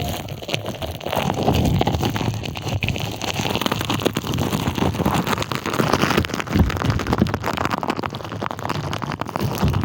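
Green slime pushed, squished and scratched directly on a microphone, giving a dense, continuous crackling of many small clicks.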